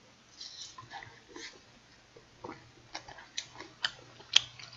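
Close-miked chewing of a pan-fried dumpling: a run of sharp wet mouth clicks and smacks, coming more often and louder in the second half.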